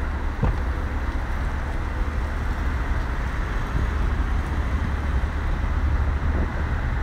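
Steady low rumble with an even hiss of outdoor background noise, without clear events or changes.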